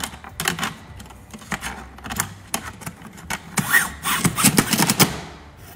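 Airbrush hoses being pushed through the holes of a metal hose-guard plate, their fittings knocking and clattering against the metal in a run of sharp clicks that is busiest about four seconds in.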